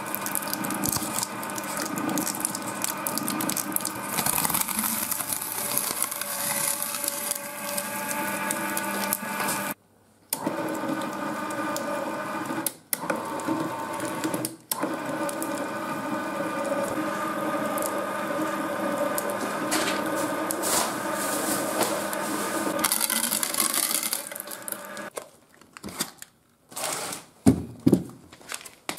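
Twin-shaft shredder driven by an electric gear motor running, with a steady gear whine over the crackling crunch of its cutter discs chewing material. The sound cuts out briefly a few times. A few loud crinkles come near the end.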